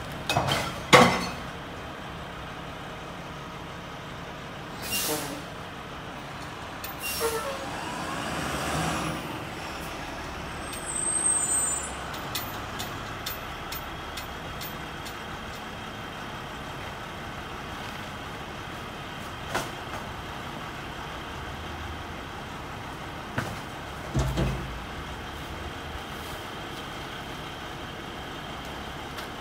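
Front-loading garbage truck with a Curotto-Can idling steadily while trash bags are thrown into the can, with scattered thuds and knocks, the loudest about a second in. A hiss of air sounds partway through.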